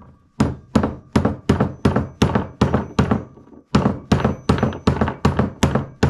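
Rapid hammer blows, about three a second with a short break about three and a half seconds in, driving the locking pin of a clevis hook on a chain flush. Each blow leaves a faint ring.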